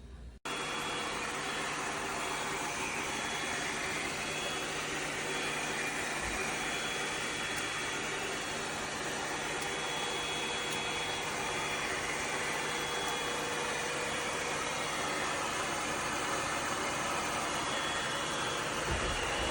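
ECOVACS DEEBOT X9 Pro Omni robot vacuum's suction running steadily, a loud even rush with a high whine over it, starting suddenly about half a second in.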